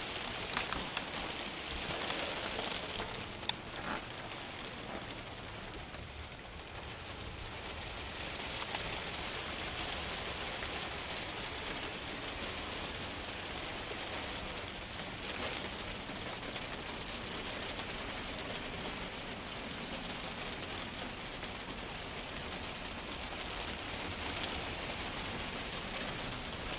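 Steady rain pattering, with scattered sharper drops standing out every few seconds.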